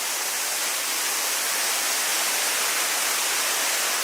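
Steady rush of water from a waterfall, an even hiss with little low end.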